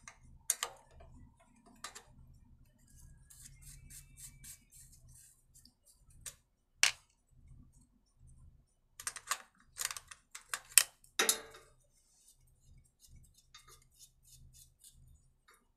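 Irregular metallic clicks and taps of a hand spanner working the carburettor mounting nuts loose on a petrol generator's engine, with a run of louder clicks about nine to eleven seconds in.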